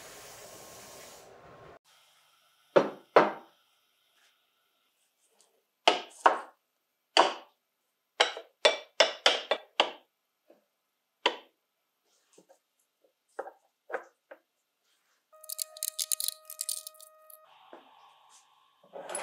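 A sandblasting cabinet's blast nozzle hisses briefly and cuts off about two seconds in. Then comes a series of sharp knocks and clinks as cast-aluminium and steel parts of a vintage Festo saw are set down one after another on a wooden workbench. Near the end there is a short rattle of small metal parts.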